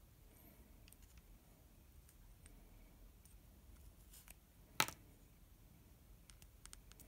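Faint clicks of a white plastic caliber jig and a metal lens-mount adapter being handled in the fingers. One sharp, louder click comes just before five seconds in, where the caliber is taken off the adapter, followed by a few small clicks near the end.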